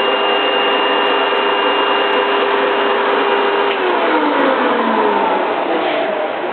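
Vacuum cleaner motor running: a steady rushing noise with a whine on top, and the whine's pitch falls away from a little past halfway.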